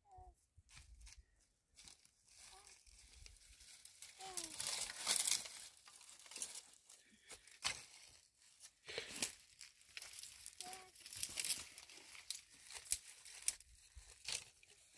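Crinkling, rustling and tearing noises with many sharp clicks, loudest about a third of the way in and again past the middle. A few short faint calls come through, one falling in pitch.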